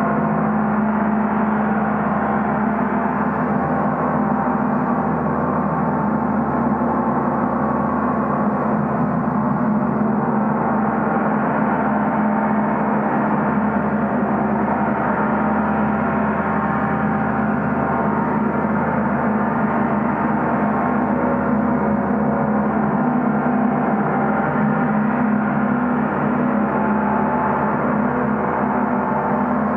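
Large portable gong played continuously, ringing as a steady, dense wash of many overlapping tones with a strong low hum and no single strikes standing out.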